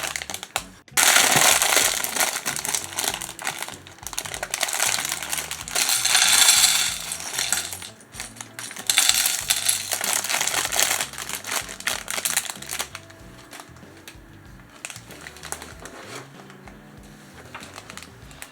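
Small plastic LEGO pieces rattling and clattering as a parts bag is opened and emptied onto a surface, in several bursts. The rattling dies down after about twelve seconds, leaving soft background music.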